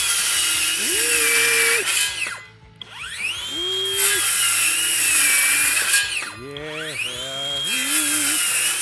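Skil PWR CORE 20 brushless 7-1/4-inch cordless circular saw cutting treated lumber. The motor's whine climbs to a high steady pitch three times, sags as the blade bites into the wood, and falls away quickly each time it stops.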